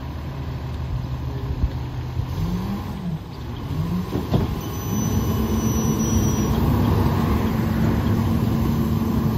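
Autocar McNeilus rear-loader garbage truck's engine running steadily, then revving up and down in pitch about halfway in, with a single sharp knock. It settles at a higher, steady speed as the rear packer is engaged to compact a load.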